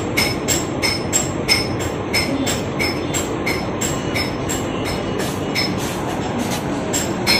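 A steady rhythmic mechanical clatter, about three clicks a second, over a constant running noise.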